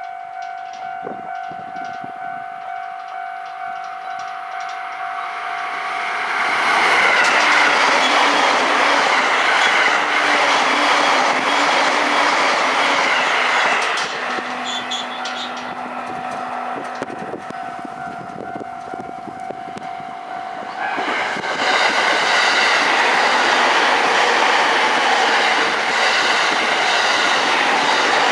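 Two JR Utsunomiya Line electric commuter trains pass one after the other, each with a rumble and the clatter of wheels over rail joints. The first passes from about six seconds in, the second from about 21 seconds in, with a quieter gap between. At the start a steady ringing tone pulses about twice a second while the first train approaches.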